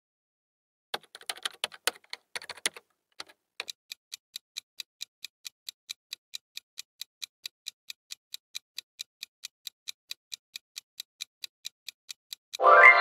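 A typewriter-like clatter of irregular clicks, then a countdown timer's clock ticking evenly and quickly, about four ticks a second. A pitched, ringing sound effect starts just before the end, as the countdown runs out.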